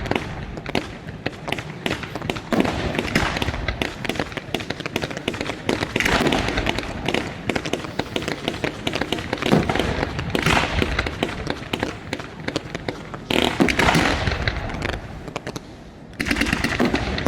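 Fireworks display: a dense, unbroken run of sharp bangs and crackle from bursting shells, swelling into louder clusters of bursts every few seconds.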